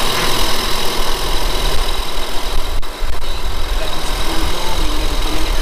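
Toyota Alphard engine idling steadily, left running to circulate freshly added power steering fluid during a fluid flush, with a thin steady whine above it.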